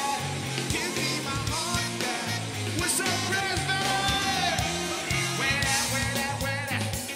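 Live band music: drum kit hits over a repeating bass line, with singing voices.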